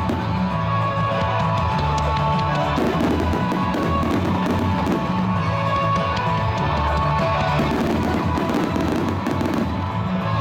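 Rock music with electric guitar and drums over a steady bass line, with fireworks bangs and crackling underneath.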